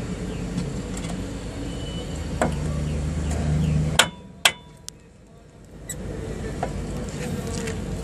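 A steady low mechanical hum with a few sharp metallic clicks and taps. About four seconds in, after the loudest click, the hum drops out for a couple of seconds, then comes back.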